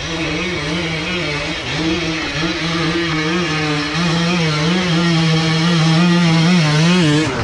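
KTM 300 EXC two-stroke enduro bike engine pulling at low speed on the trail, its note wavering up and down with small throttle changes and growing a little louder about halfway through.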